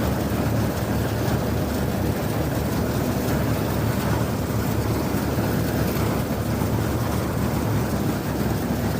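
Malkit 997 self-propelled combine harvester running steadily while cutting paddy: a constant heavy drone of engine and machinery at an even level.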